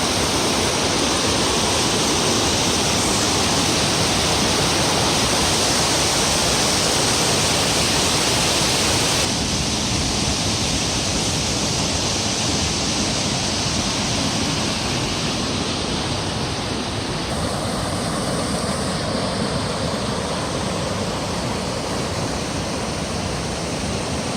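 Steady rushing of water over a waterfall and rocky creek, a loud even hiss; it becomes slightly less bright about nine seconds in.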